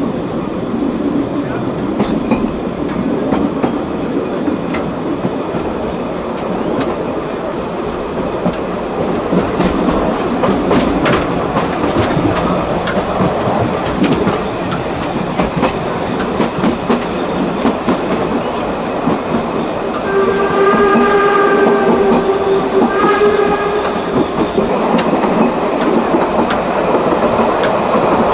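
Narrow-gauge steam train running along the track, wheels clicking over the rail joints. About two-thirds of the way through, the locomotive's whistle sounds one long blast and then a short one.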